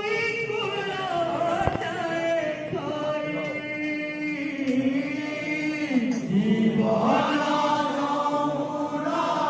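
Male voices chanting an Odia devotional kirtan together, in long held notes that slide slowly from pitch to pitch. A single sharp click comes in about two seconds in.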